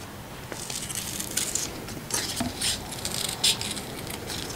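Scissors snipping through kinesiology tape and its paper backing: a run of short, crisp cuts at uneven intervals as the strip's corners are rounded off.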